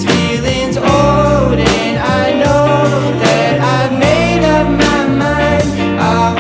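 Music: an indie pop song playing, with a sung melody over bass and a steady beat.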